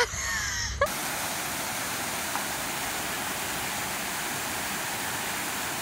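Steady rushing of water falling in a fountain cascade, starting abruptly about a second in after a click and a few faint chirps.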